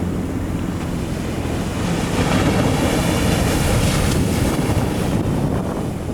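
Wind buffeting the microphone over the rush of surf, swelling louder for a few seconds in the middle as a wave breaks.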